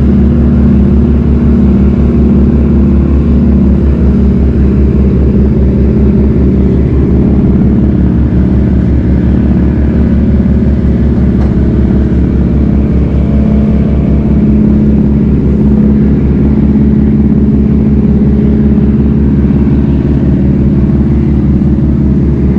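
Loud, steady low drone of large marine diesel engines, with a fast even pulse.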